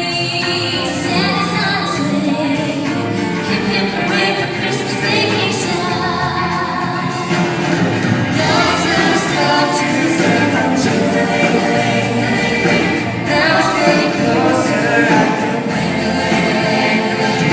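A song with singing over a full musical backing, including choir-like voices.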